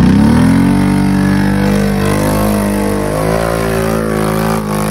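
ATV engine revving up over the first half second, then held at high revs with the pitch wavering slightly.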